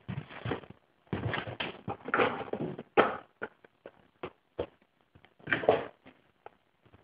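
Irregular workshop handling noise: short knocks and clicks between rough scraping and rubbing bursts, the loudest about one to two seconds in, about three seconds in, and just before six seconds, as steamed wooden gunwale strips are worked onto a bending jig.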